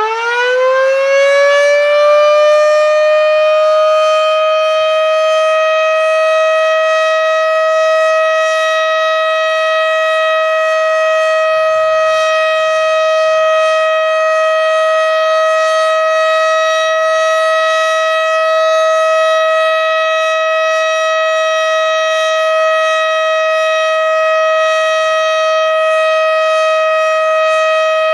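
Federal Signal Model 5 electromechanical warning siren sounding a test. It finishes winding up, its pitch rising over the first couple of seconds, then holds one loud, steady tone.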